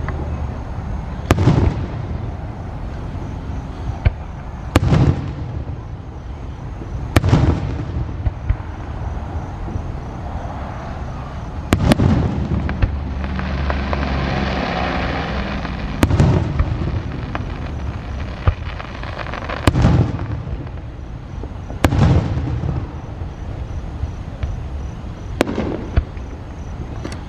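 Aerial fireworks bursting every few seconds, each sharp bang followed by a rolling rumble, with a long stretch of crackling about halfway through.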